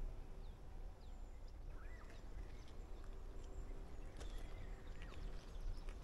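Footsteps of someone walking, as scattered soft knocks, with small birds chirping now and then and a low rumble of wind on the microphone underneath.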